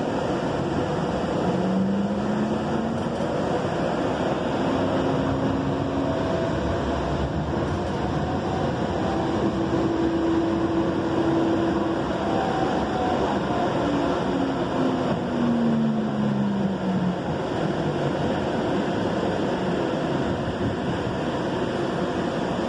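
Inside a Valley Metro light-rail car under way: a steady rolling rumble, with a motor whine that rises in pitch as the train gathers speed, holds, then falls again past the middle as it slows.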